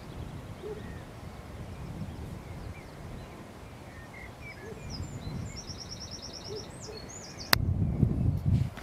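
Wind rumbling on the microphone's windshield, with birds calling: scattered faint chirps, a quick trill of about eight repeated high notes, and a few short low hoots. About seven and a half seconds in, a sharp click, then the low wind rumble grows much louder.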